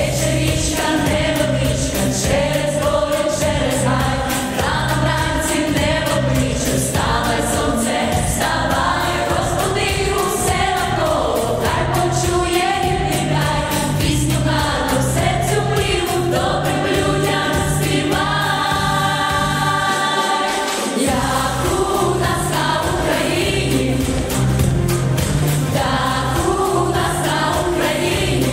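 A mixed vocal group, girls and a young man, singing a song in harmony into microphones over instrumental backing with a steady beat. The bass and beat drop out for about a second some two-thirds of the way through.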